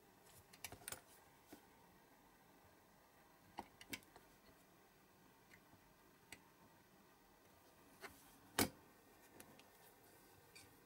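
Scattered faint clicks and taps of short steel wire pieces and small hand tools (pliers, a utility knife) handled on a cutting mat, with one sharper tap about two-thirds of the way through.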